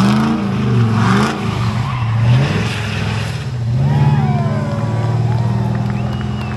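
Drift car's engine revving up and down about once a second, with bursts of tyre screech, as the car slides in circles through its own tyre smoke. About four seconds in the engine settles into a steady, held note as the car pulls away, with thin tyre squeals over it.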